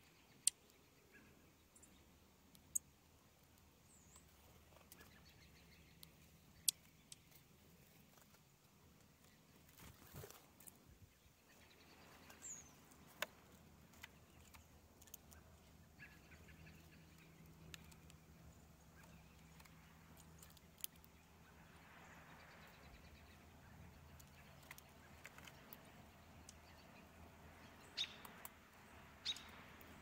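Faint outdoor quiet broken by several sharp, isolated taps of birds pecking at birdseed on a snowy ledge, with one brief high bird chirp a little before the middle.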